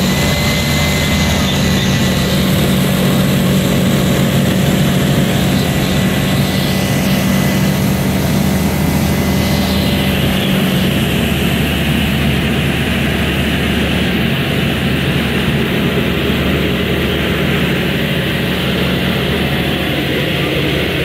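Light sport aircraft's piston engine and propeller running at full takeoff power, heard from inside the cockpit as a loud, steady drone through the takeoff roll and climb-out.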